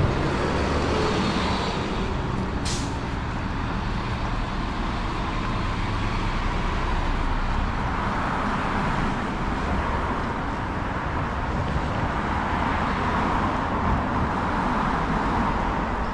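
Street traffic: cars and heavier vehicles passing with a steady road rumble, and a brief sharp high sound about three seconds in.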